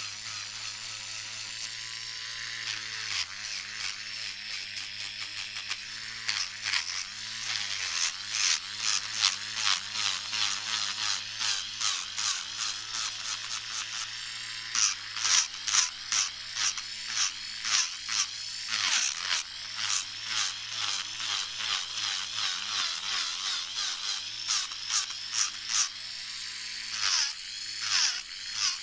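Electric nail drill with a ceramic bit grinding acrylic off a fingernail: a steady motor hum under a rasping grind that pulses with each quick stroke of the bit, the strokes coming faster and harder after the first few seconds.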